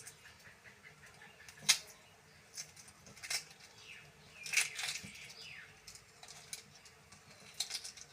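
Scattered clicks and short crackles of peeled hard-boiled eggs frying in hot oil, with a sharp louder crack a little under two seconds in and a denser cluster of pops around the middle.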